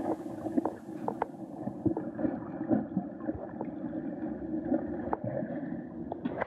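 Muffled underwater churning and bubbling of water stirred by a swimmer's strokes, with scattered short knocks.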